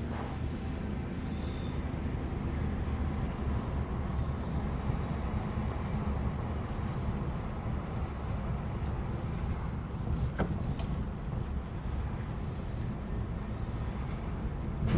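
Steady low road and engine rumble of a van being driven, heard inside the cabin, with a faint click or two about ten seconds in.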